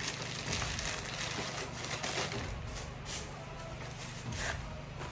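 Packaging rustling and crinkling as products are handled, with a few sharper crackles.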